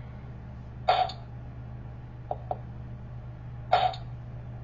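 Bop It Button toy in test mode playing short sound effects through its small speaker: two brief blips about three seconds apart, with a pair of faint clicks between them.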